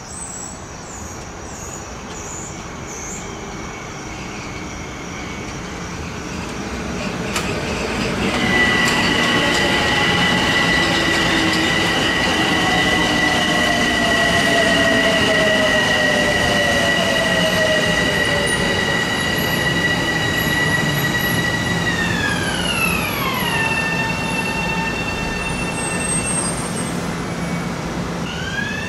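Metro-North M7A electric multiple-unit train arriving and passing close by: a rolling rumble that grows louder about eight seconds in, with a steady high electric whine over it. About two-thirds through the whine drops in pitch as the train slows, and near the end a whine rises again.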